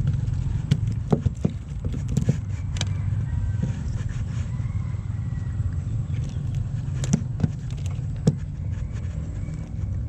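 Steady low rumble of a small boat's engine running, with scattered sharp clicks and knocks from handling the net and fish.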